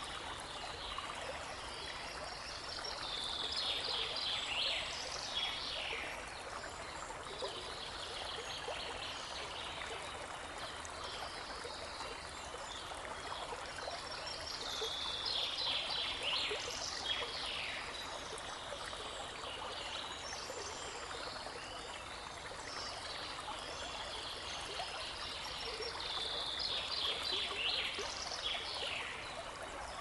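A babbling brook runs steadily. A songbird sings the same quick, tumbling phrase of high notes three times, about every twelve seconds.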